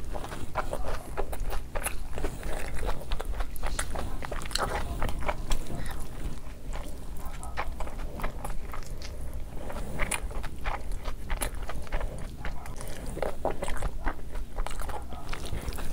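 Close-up eating sounds of a person biting into and chewing breaded fried chicken, with many short crunches and clicks.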